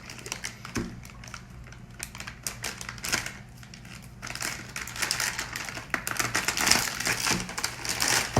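Packaging being crinkled and torn open by hand as a boxed item is unwrapped, in a run of rustling, crackling bursts that grow busier and louder in the second half.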